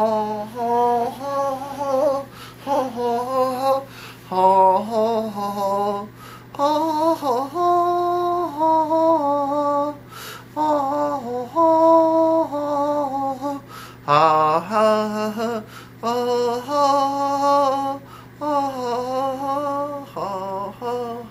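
A slow melody sung by a single voice, in phrases of held, slightly wavering notes with short breaks between them, over a steady low hum.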